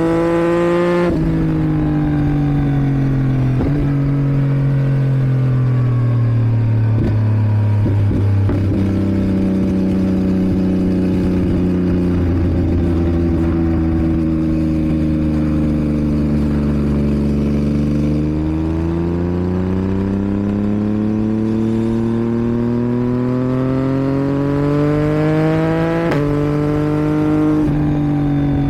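2022 Yamaha MT-09's 890 cc inline three-cylinder engine running through a Roadsitalia homologated exhaust with catalyst. The note drops about a second in, then falls slowly as the bike slows. From about 18 s it climbs through the revs, drops at a gear change about 26 s in, and climbs again.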